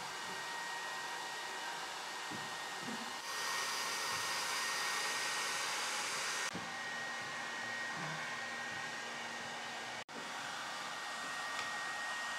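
Handheld electric hot-air gun blowing steadily, its fan noise carrying a thin high whine. It grows louder for about three seconds in the middle.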